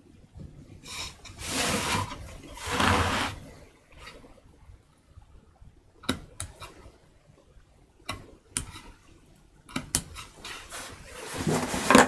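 Hand carving of a wooden print block with a small carving knife. Two long rushing, scraping sounds come in the first few seconds, then a few sharp light clicks and taps of the tool on the wood, and a softer rubbing near the end.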